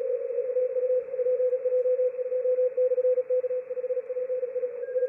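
Morse code (CW) from the 3Y0J DXpedition station on Bouvet Island, received on a software-defined radio: a fast keyed tone of one steady pitch, sounding in dots and dashes over a band of receiver hiss. Near the end, fainter higher-pitched Morse from other stations calling back begins.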